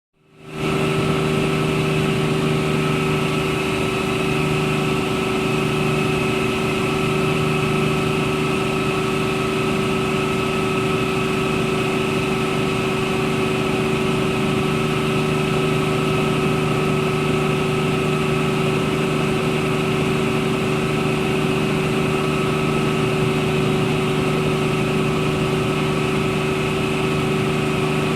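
Helicopter in flight heard from inside the cabin: a steady engine and rotor drone with a constant turbine whine and a low hum, fading in over the first half second and holding unchanged.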